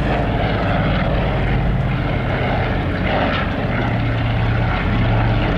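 Canadair CL-215 water bomber's twin radial piston engines and propellers droning steadily as it flies low over the lake. A low engine tone grows stronger in the second half.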